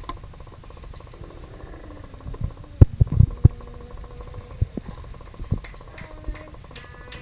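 Motorised Lego City Cargo Train running on plastic track: a steady motor hum with fine, even wheel clatter. A handful of loud thumps come close together about three seconds in, and a few lighter knocks follow.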